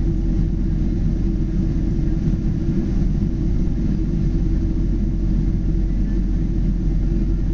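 Steady low rumble of a Boeing 777 jet in flight, its engines and airflow running evenly with no change in pitch or level.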